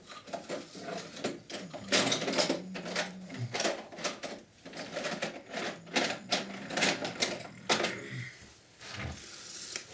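Irregular rapid clicking and clattering of small hard tools and parts being handled, with a few dozen sharp taps over several seconds.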